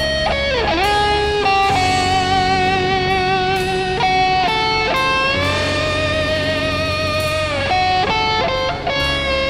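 Background rock music led by an electric guitar, with sustained notes that bend and waver over a steady bass.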